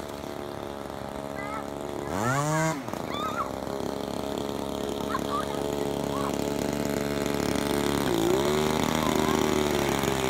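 Small two-stroke engine from a Homelite ST-275 string trimmer, driving an RC crackerbox boat, running steadily. About two seconds in it revs up and falls back in one quick sweep. Near the end it dips briefly in pitch, then runs steady again.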